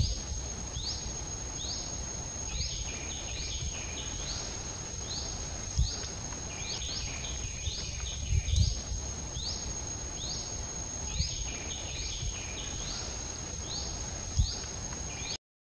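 Outdoor ambience: a steady high-pitched insect drone, with a short rising chirp repeated over and over, a bit more than once a second. A few low thumps are heard, and the sound cuts out briefly at the very end.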